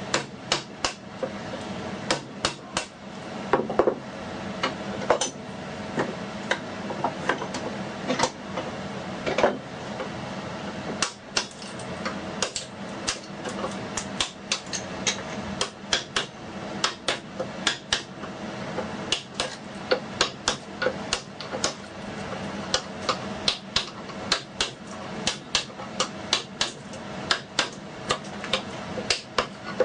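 Wooden mallet striking a woodworking chisel, cutting and paring into wood with repeated sharp taps at an uneven pace, a few a second, with a brief pause near the middle.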